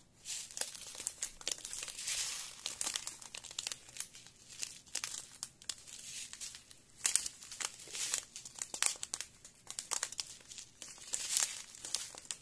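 Small plastic packets of diamond painting stones crinkling and rustling as they are handled, in quick irregular crackles.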